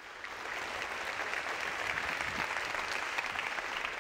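Audience applauding, a dense steady patter of many hands clapping that swells in over the first half second.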